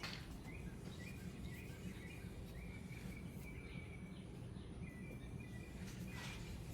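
Faint outdoor background with a low steady rumble and a bird chirping repeatedly in short, high notes.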